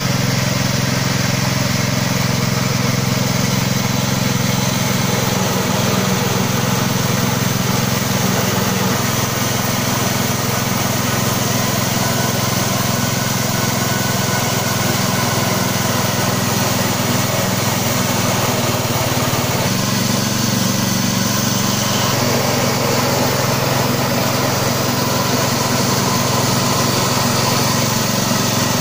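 6N40 rice huller running steadily under load, driven by a small 7 HP petrol engine, as it husks and mills paddy into white rice: a constant engine drone with a dense mechanical hiss over it.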